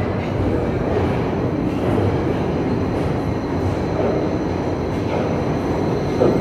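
Underground electric train in a tunnel: a steady rumble of the train and its wheels on the rails.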